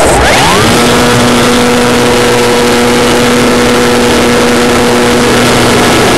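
Electric motor and propeller of an Elektro Junior S RC glider spinning up, rising quickly in pitch about half a second in, then holding a steady whine. Airflow rushes over the onboard camera's microphone underneath.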